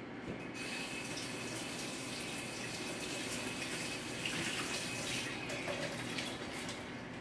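Kitchen faucet running into a sink. The water is turned on about half a second in, and the rush eases off about five seconds in.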